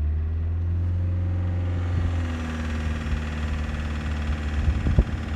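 Toyota 2L-TE four-cylinder turbodiesel engine running at raised, steady revs, rough and wheezing, with the characteristic knock that the mechanic traces to the injection pump, which the owner blames on water in the diesel. A few sharper knocks stand out about two seconds in and near the end.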